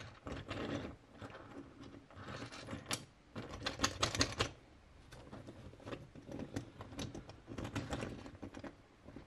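Small 3D-printed articulated opossum figure being flexed and moved by hand: its plastic segments click and rattle in irregular clusters of light taps.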